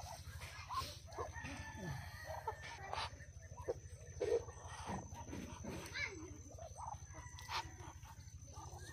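Farmyard poultry calling: a scatter of short, irregular clucks and squawks with a few sharper calls, over a steady low hum.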